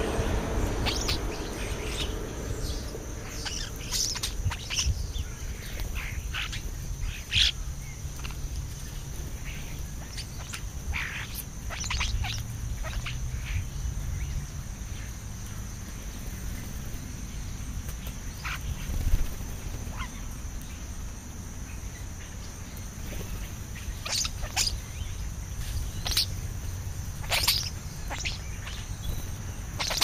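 European starlings, several of them moulting juveniles, feeding on the ground and giving short, scattered chirps and harsh calls, with louder ones about a quarter of the way in and past the middle. A steady high-pitched buzz and a low rumble run underneath.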